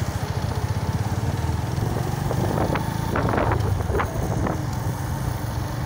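Motorcycle engine running steadily on the move, with an even low pulsing throughout.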